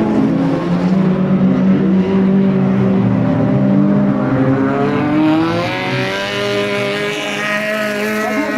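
Race car engines running hard on an ice track, more than one at once. From about five seconds in, one engine climbs steadily in pitch and grows louder as it accelerates.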